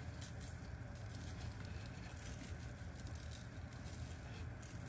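Faint patter of dry seasoning being shaken onto raw chicken wings, over a low steady hum.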